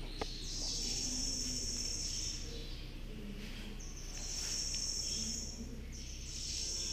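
High-pitched insect buzzing in three drawn-out phrases of about two seconds each, with a short click near the start.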